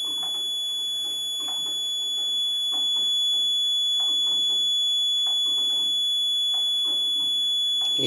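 The emergency alarm buzzer of a women's safety device sounding one continuous high-pitched tone: the alarm is on after the panic switch button has been pressed.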